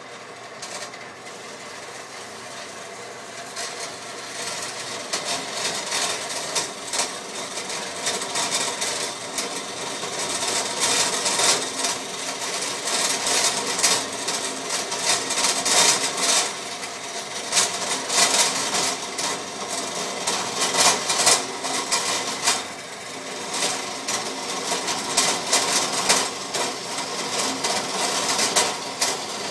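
Old metal-cutting bandsaw converted to vertical use, running while its blade cuts through steel square tubing fed by hand: a steady motor and blade hum under a rasping of teeth on steel that grows louder over the first ten seconds or so and then rises and falls as the cut goes on.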